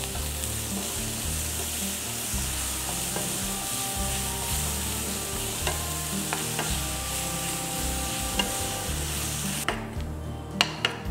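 Mint leaves, shallots, garlic and green chillies sizzling in hot oil in a stainless steel pan, stirred with a wooden spatula that scrapes and knocks against the pan as the mint wilts. The sizzle drops away near the end, leaving a few knocks.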